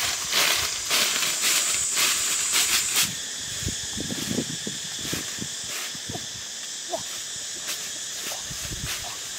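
Footsteps crunching and rustling through dry leaves and brush close by for about the first three seconds, then fainter steps, over a steady high-pitched insect drone.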